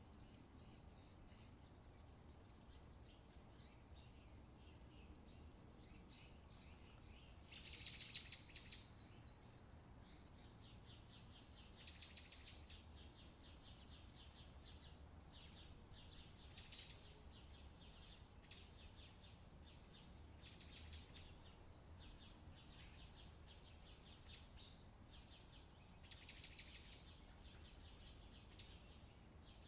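Faint birdsong: short, rapidly trilled chirping phrases every few seconds, the loudest about eight seconds in and again near the end, over a faint steady low rumble.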